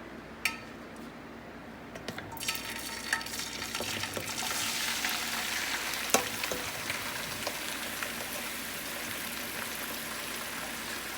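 Chopped onions frying in hot oil: a sizzle starts about two seconds in, swells, and keeps going while a spoon knocks against the pan now and then, loudest once near the middle.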